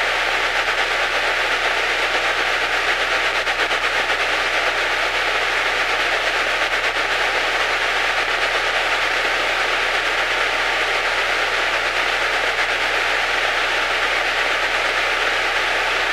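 Steady hiss on the Lake amphibian's intercom audio, with a faint steady tone, over the muffled drone of the engine while taxiing. The hiss is a radio fault the crew was trying to trace, first suspected to be a headset jack.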